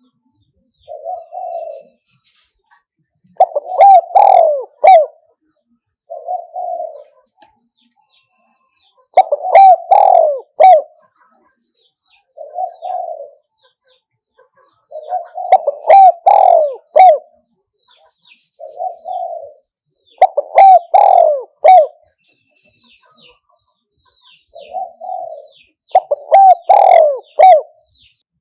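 Spotted dove cooing in a repeated phrase, five times over. Each phrase is a lone soft coo followed a couple of seconds later by a louder run of three or four coos, and the phrase comes back about every six seconds.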